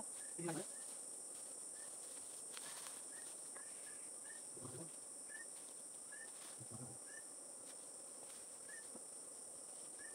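Steady high-pitched insect chorus, with a short faint chirp repeating about once a second and a few brief, low murmurs of a voice.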